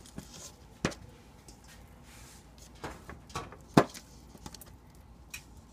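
Kitchen knife cutting oyster mushrooms into small chunks on a paper plate: about five separate sharp taps as the blade goes through and strikes the plate, the loudest about two-thirds of the way through.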